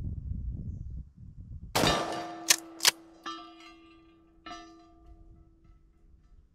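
A shotgun shot, then sharp metallic cracks and a steel gong target ringing with a clear, lingering tone. The gong clangs again twice as the ringing fades.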